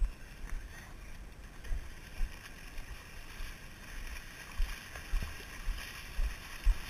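Feet sloshing and splashing through a shallow pool of muddy water, with irregular dull thumps from the steps.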